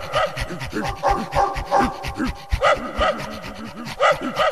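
Several dogs playing rough, a quick run of short yaps and panting sounds, about three a second.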